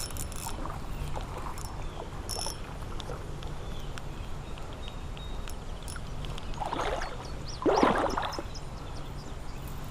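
Water splashing in two short bursts near the end: a hooked fish thrashing at the creek's surface as it is reeled in, over a faint steady background noise.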